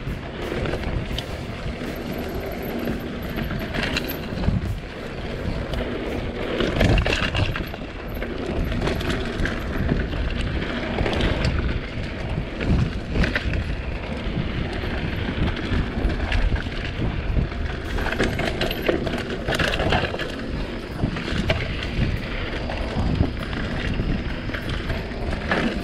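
Mountain bike ridden fast along a dirt forest trail: constant wind rushing on the camera microphone and tyre rumble, broken by frequent sharp rattles and knocks as the bike hits bumps.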